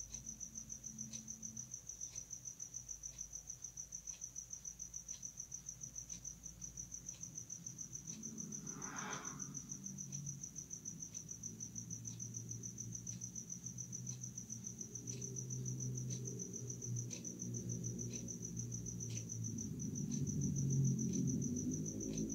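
Crickets chirping in a steady, rapidly pulsing high trill, with a low hum growing underneath from about eight seconds in.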